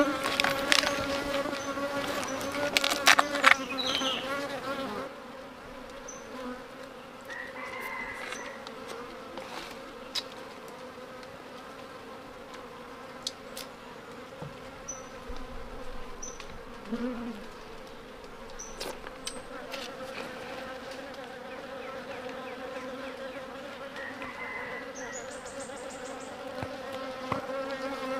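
A colony of wild bees buzzing steadily from their nest inside a hollow tree trunk as it is broken open. A few sharp knocks and cracks of splintered wood sound in the first few seconds.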